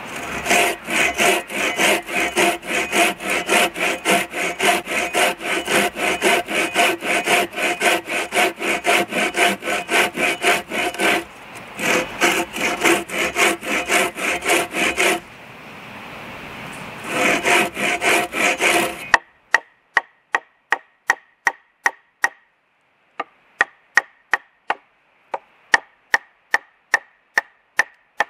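A large curved pruning saw cutting through a log with quick, rhythmic strokes, pausing twice briefly. About two-thirds of the way through, the sawing stops abruptly and a run of sharp axe strikes into wood follows, about two a second.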